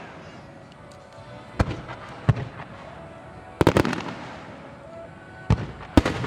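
Large aerial firework shells bursting overhead: a series of sharp booms, several close together about halfway through, the bigger ones trailing off in a rumble.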